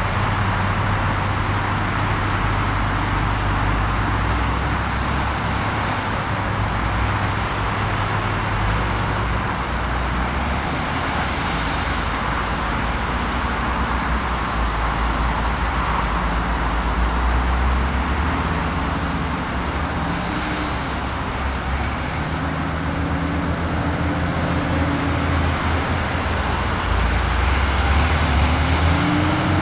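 LiuGong 930E crawler excavator working: its diesel engine runs steadily under hydraulic load, the pitch shifting a little from time to time as it digs and swings the bucket.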